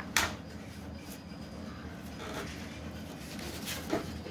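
Paper rustling and crackling as the printed letter holding a credit card is handled and the card is peeled off it. There is a sharp, loud crackle just after the start, a faint one about a second in and two more near the end, over a faint steady hum.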